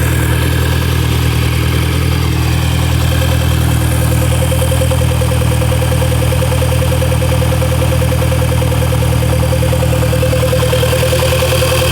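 VW Golf Mk5 GTI's 2.0 turbocharged four-cylinder engine idling steadily, with a constant higher-pitched tone over the engine's low hum. The owner finds the sound weird and does not know whether it is normal or what fault it points to.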